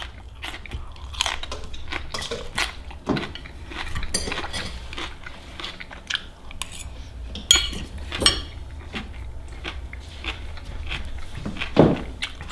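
Cutlery clinking and scraping against a plate during a meal: many scattered clicks and knocks, with a few brighter ringing clinks about four seconds in and around eight seconds.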